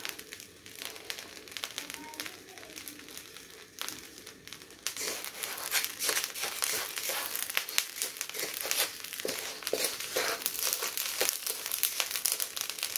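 Wooden spatula scraping and shovelling hot salt around ears of corn in a wok: a gritty scraping with many small crackling clicks. It is faint at first, then denser and louder from about five seconds in, when the stirring starts.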